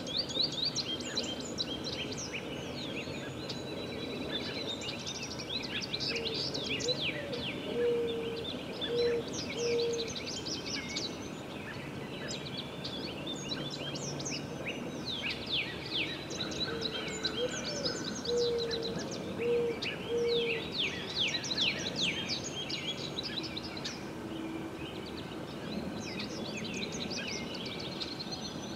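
Chorus of wild birds singing: many quick high chirps and trills overlapping, with a low hooting call of one rising note followed by three short notes, heard twice.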